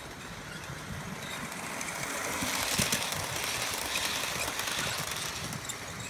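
Model train running past on the track, the rolling rumble of its wheels and motor swelling as the coaches pass and easing off toward the end, with light clicks over the track.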